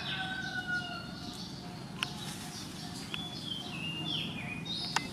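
Chirping, whistled animal calls with short downward-sliding notes over a steady background hiss, and two sharp clicks, one about two seconds in and one near the end.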